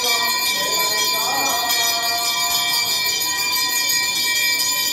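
Temple bells rung continuously for the arathi: a dense, steady ringing of many high tones, with a faint voice heard under it about a second in.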